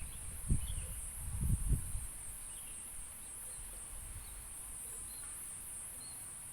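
Steady high-pitched insect chorus with a slight pulse, typical of crickets. A few low bumps come in the first two seconds.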